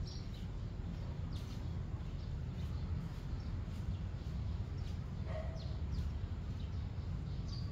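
Outdoor ambience: a steady low rumble with faint, brief bird chirps scattered through it, one short call a little past the middle.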